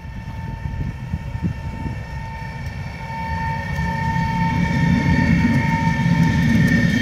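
VR Sr3 electric locomotive pulling a passenger train out of the station and passing close by, with a steady electric whine over a low rumble of wheels on rail. The rumble grows louder from about three seconds in as the locomotive and then the double-deck coaches go past.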